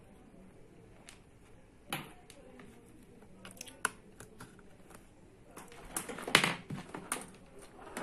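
Scattered clicks and knocks of a digital multimeter's test-lead probes being handled and pushed into the meter's jacks, with a louder cluster of knocks about six seconds in.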